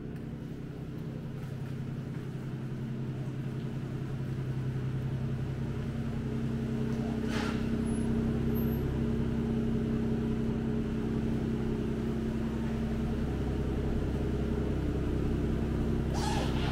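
Aston Martin DB11 AMR's twin-turbo V12 running at a slow crawl, a steady low engine note that grows louder as the car draws near.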